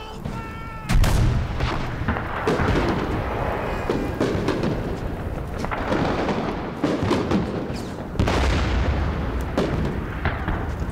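Battlefield sound of a World War I film: two heavy shell explosions, one about a second in and one near eight seconds, with scattered gunshots cracking between them.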